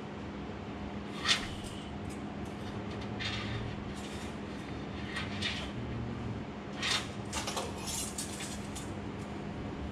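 A few short rattling scrapes and clicks of a steel tape measure being pulled out and handled, over a steady low hum.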